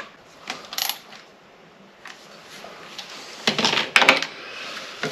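Light metallic clinks and clatter of small metal engine parts and tools being handled: a couple of single clicks, then a quick cluster of sharp clinks a little past three seconds in.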